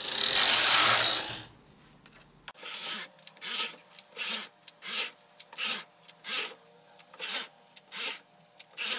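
Brother KH260 knitting machine carriage sliding across the needle bed, knitting short-row shaping rows: one long pass, then a quick run of about nine short strokes.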